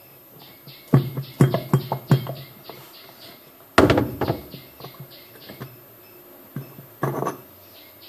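Hard plastic knocks and clunks from hands working on a twin-tub washing machine's spin basket and its hub nut. A quick run of sharp knocks comes in the first two seconds, the heaviest clunk about halfway through, and one more clunk near the end.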